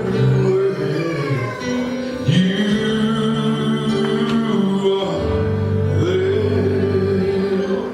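Live gospel song music with long held chords that change about two seconds in and again about five seconds in.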